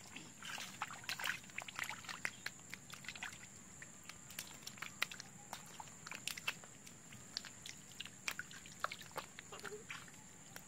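Hands and feet splashing and squelching in shallow muddy water, a string of short, irregular sloshes, with a steady high-pitched tone behind.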